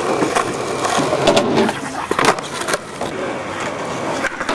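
Skateboard wheels rolling on concrete, with a few sharp clacks of the board in the first three seconds.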